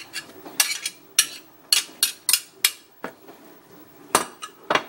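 A run of sharp clinks and knocks from cutlery against a plate or dish: about six quick ones in the first three seconds, then two heavier knocks with a deeper thud near the end. This is the scraped-out artichoke choke being knocked off the utensils and dumped.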